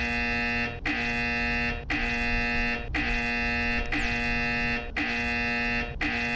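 A ride-hailing driver app's new-order alert sounding on a phone: a buzzing electronic tone repeating about once a second, each tone lasting most of a second with a short break between.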